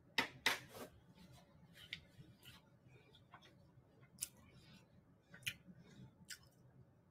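Faint wet mouth clicks and smacks of a person chewing a mouthful of instant ramen noodles, scattered irregularly about a second apart.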